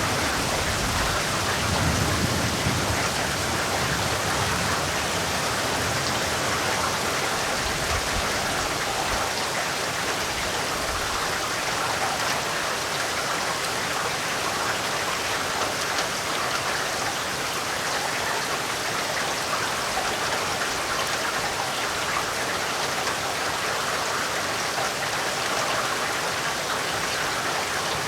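Heavy rain pouring steadily, a dense even hiss of drops. A low rumble underneath fades away over the first several seconds.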